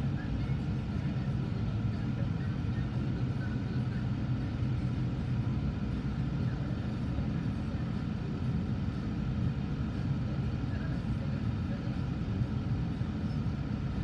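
Freight train's covered hopper cars rolling past a grade crossing, a steady low rumble heard from inside a car.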